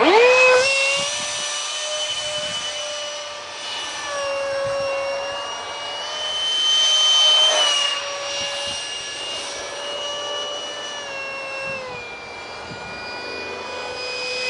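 Detrum 70mm electric ducted fan on a foam RC jet whining at high throttle in flight. It spools up sharply at the start, then holds a steady high whine with small changes in pitch, growing louder for a couple of seconds midway as the jet passes.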